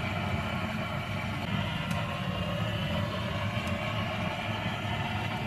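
Butane gas torch running steadily, its flame blown into a wood stove's firebox to get the wood fire going.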